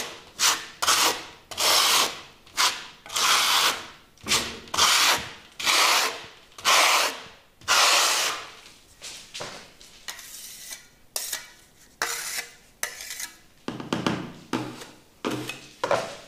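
Steel trowel scraping across wet architectural concrete plaster in repeated smoothing strokes, about one to two a second. The strokes are long and loud at first, then shorter and lighter, with a few lower-pitched scrapes near the end.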